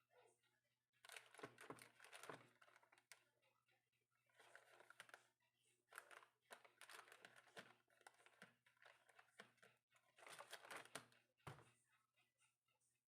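Faint crinkling and rustling handling noise in three spells, the middle one the longest.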